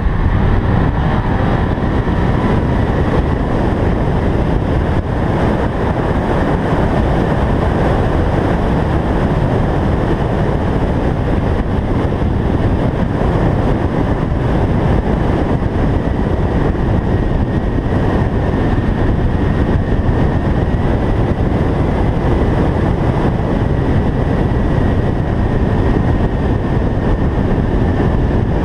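Subaru BRZ tS driving at speed, a loud, steady rush of wind and road noise with the engine underneath.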